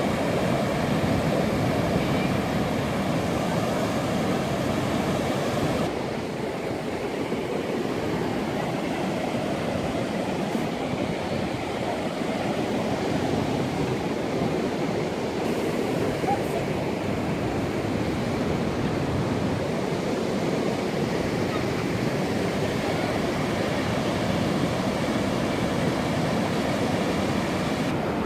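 Steady wash of ocean surf breaking over the rocks.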